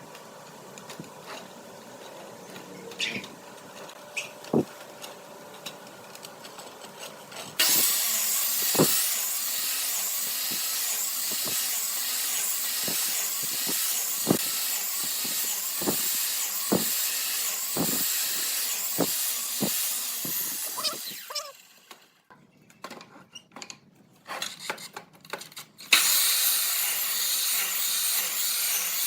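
A power tool working wood, starting abruptly about a quarter of the way in and running with a hissing, high-pitched noise and repeated knocks. It stops for a few seconds near the end, then starts again. Before it starts there are quieter handling knocks.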